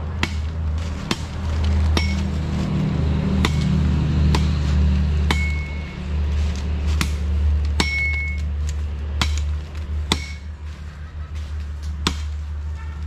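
Machete chopping a dry branch for firewood: a sharp strike about once a second, several leaving a brief metallic ring. A steady low rumble runs underneath.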